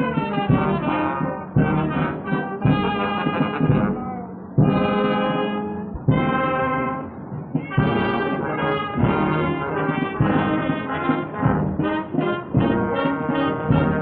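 Brass band playing, in held chords with a few short breaks. It is heard through a 1928 sound-film track with no high treble, so it sounds dull.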